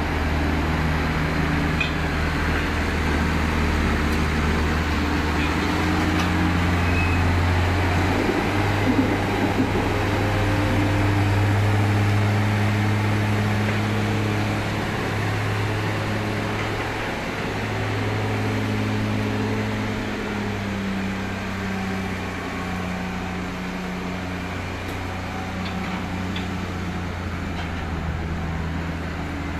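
Tractor diesel engine running under load as the tractor drives over a grass silage pit with a rear buckrake, levelling it off. The engine note rises about eight seconds in and drops again about twenty seconds in as the revs change.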